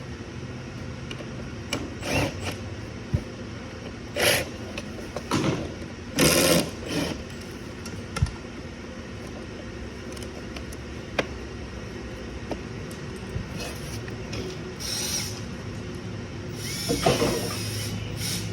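Short whirring bursts from a power tool, the loudest about six seconds in and another near the end, over a steady shop hum, with scattered clicks of parts being handled.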